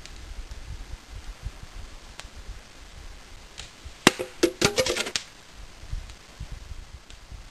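An arrow hits an empty plastic bottle and punches right through it: one sharp crack about four seconds in, then about a second of clattering as the bottle is knocked over.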